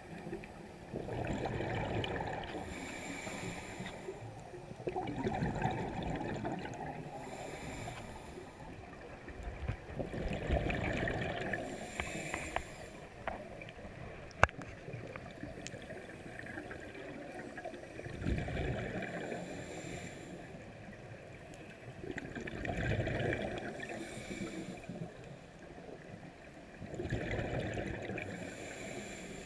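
Scuba breathing through a regulator, heard underwater: six breath cycles a few seconds apart, each a hiss on the inhale and a gush of exhaled bubbles. One sharp click about fourteen seconds in.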